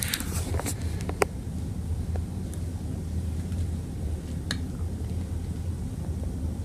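A cat mouthing and licking a plastic bag: a few sharp plastic crinkles and clicks in the first second or so and one more about four and a half seconds in, over a steady low hum.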